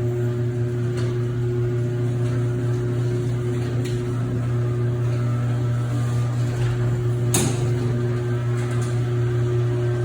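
Chamberlain C450C ½ HP chain-drive garage door opener running a door, a steady motor hum with scattered clicks and clanks from the chain and door, the sharpest about seven seconds in.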